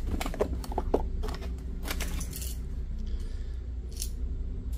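Costume jewelry (bead necklaces and metal bracelets) clinking and rattling in the velvet-lined drawers of a jewelry box as gloved hands sort through it: a run of light clicks in the first two and a half seconds and another about four seconds in, over a steady low hum.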